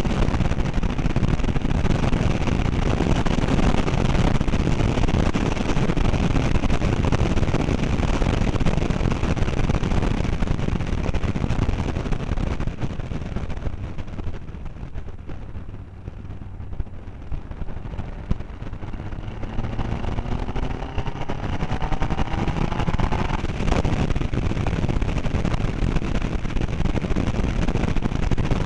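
Seat Leon Copa race car at speed, heard onboard as a dense, rough rumble of engine and road noise. Around halfway it drops off for a few seconds as the car slows, then an engine note rises in pitch as it accelerates hard again.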